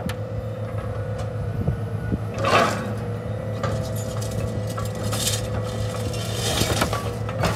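An engine running steadily under repeated metallic clinks, glassy chinks and scrapes of scrap car bodies being worked by machinery, with one louder grinding scrape about two and a half seconds in.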